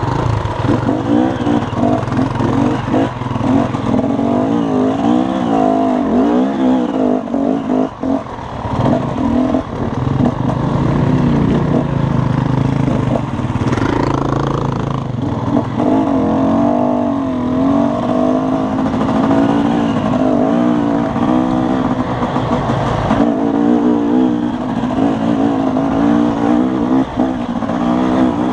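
Dirt bike engine running under constantly changing throttle on a rocky trail, its pitch rising and falling again and again, with clattering knocks from the bike jolting over rocks.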